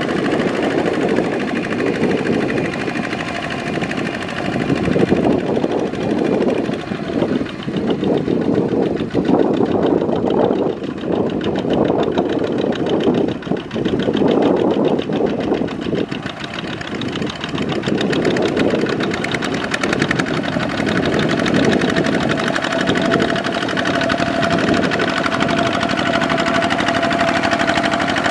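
Kubota ZT155 single-cylinder diesel engine on a two-wheel walking tractor chugging steadily under load as it pulls a plough through wet paddy mud. A steady higher tone joins the engine in the last several seconds.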